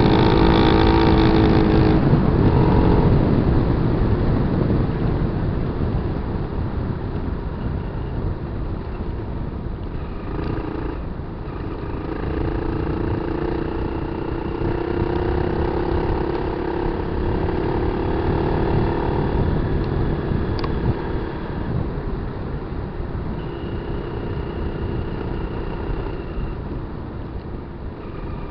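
Kawasaki KLR 250's single-cylinder four-stroke engine running under changing throttle while the motorcycle is ridden off road. It is loudest at the start, its pitch drops after about two seconds, climbs again in the middle, and eases off later, over a steady rushing noise.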